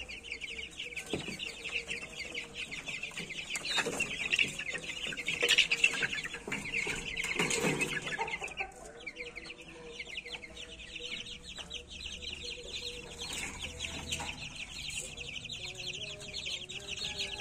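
A pen of young Pama chicks, about a month old, cheeping without a break in a dense chorus of short, high calls, louder around the middle.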